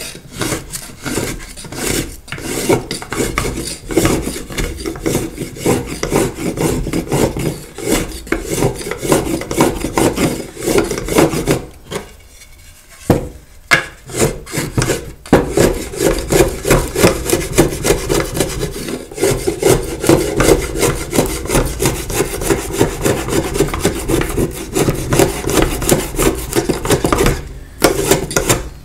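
A hand tool working a wooden board with rapid back-and-forth scraping strokes, pausing briefly about halfway through.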